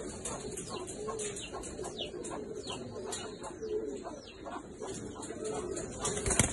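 Pigeons cooing: low, wavering coos, with rapid short high chirps throughout and one sharp knock near the end.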